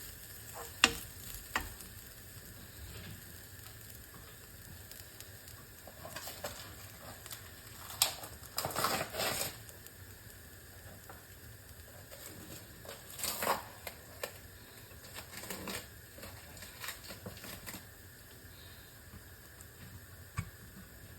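Anchovies and chillies stir-frying in a pan: a faint sizzle under scattered clicks and scrapes of a utensil against the pan, busiest about eight to nine seconds in and again around thirteen seconds.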